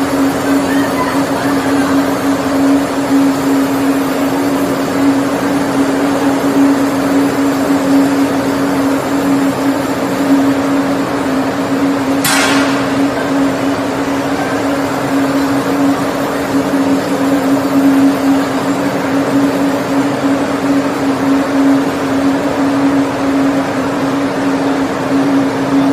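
Machinery of a continuous snack-food fryer line running: a steady hum with one constant tone over a broad rushing noise. A single sharp click sounds about halfway through.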